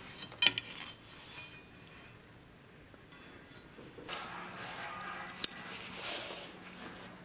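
Large steel knife blades being handled on a workbench: a few sharp metallic clinks about half a second in, then a rustling scrape from about four seconds with one sharp click midway through it.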